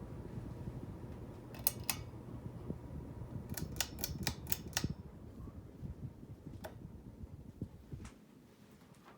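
Hampton Bay Redington IV ceiling fan running with a low steady rumble that drops away about eight seconds in, under a series of sharp mechanical clicks, including a quick run of five.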